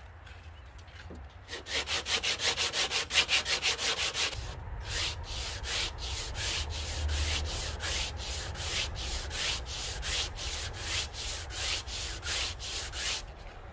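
A cast Alumilite resin emblem rubbed back and forth on sandpaper laid over a curved truck body panel, wearing its back down to the panel's contour. The strokes start about a second and a half in, about five a second at first, then slow to about two or three a second.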